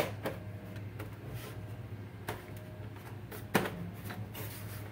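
Hands handling the plastic rear housing of an all-in-one PC: a few sharp plastic clicks and knocks, the loudest at the start and about three and a half seconds in, over a steady low hum.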